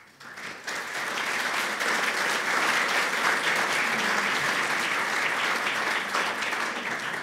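Audience applauding: many people clapping, swelling within the first second, holding steady, then easing off near the end.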